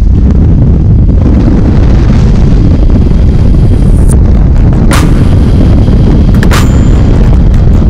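Heavy wind rush buffeting the microphone in the airstream at the open door of a small skydiving plane in flight, a loud dense rumble throughout. Two sharp clicks cut through it in the second half.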